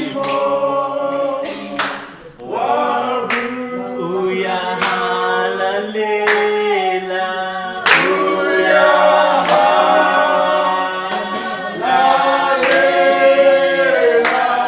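A group of voices singing a song together in harmony without instruments, with a sharp beat every second or two.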